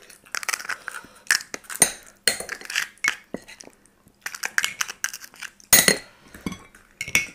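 Metal spoons clinking and scraping against ceramic bowls and plates as fuchka shells are filled, a quick, irregular run of clinks with one louder cluster near the end.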